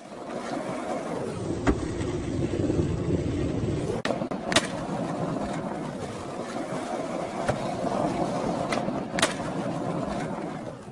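Skateboard wheels rolling on asphalt, a steady gritty rumble broken by several sharp clacks of the board.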